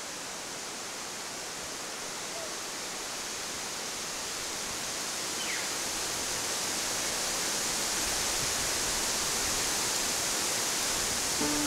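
Steady rushing outdoor noise, slowly growing louder, with no distinct calls or impacts.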